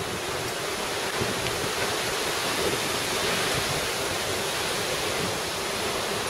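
Steady rushing noise, even and unbroken, with a few faint taps about a second in.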